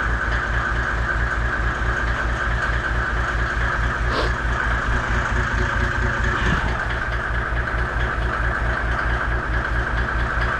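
An engine idling steadily with an even, low pulsing rumble and a constant whir above it, with a faint knock about four seconds in.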